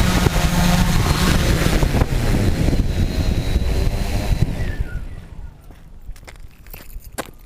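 Tarot 680 hexacopter drone's electric motors and propellers running with wind rushing over the camera microphone, then winding down with a falling whine about five seconds in. After that only faint clicks and handling noise.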